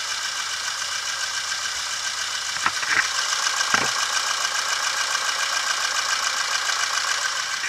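Citroën Saxo's TU-series engine idling steadily with washing-up liquid in place of engine oil, heard close to the open oil filler, with a fast, even ticking. A few short knocks come about three to four seconds in.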